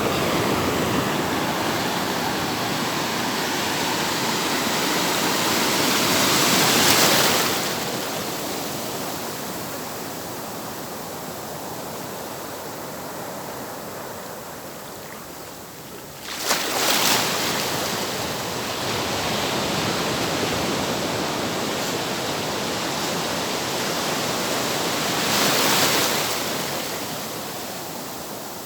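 Ocean waves breaking and washing in, a steady rush that swells three times, with one wave crashing suddenly about halfway through.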